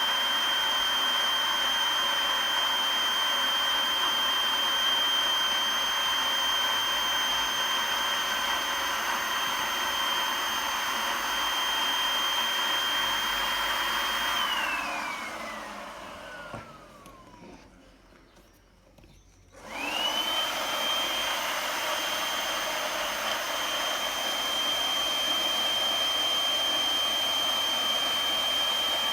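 Makita DUB182 18V cordless blower running steadily with a high whine over rushing air, blowing air into an inflatable boat. About halfway through it is switched off and winds down with falling pitch to near quiet, then a few seconds later spins back up quickly and runs on.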